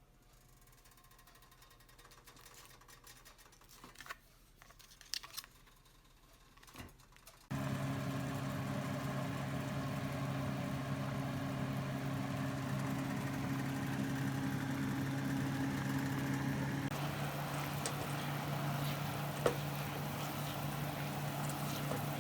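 A few faint clicks, then a steady low mechanical hum with a hiss that starts suddenly about seven and a half seconds in.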